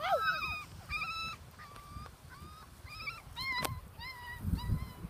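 Cavachon puppies yipping and whining: repeated short, high-pitched cries, roughly two a second.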